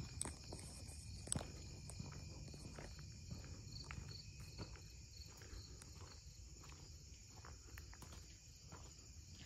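A steady, high chirring chorus of insects, with scattered footsteps and small clicks on the ground.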